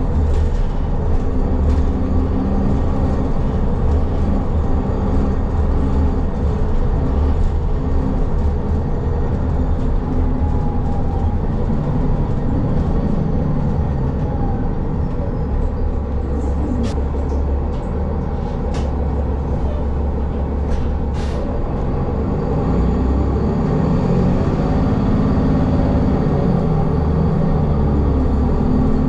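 Inside a moving city bus: steady low engine and road rumble, with a few sharp rattles around the middle. The engine note rises and falls near the end as the bus changes speed.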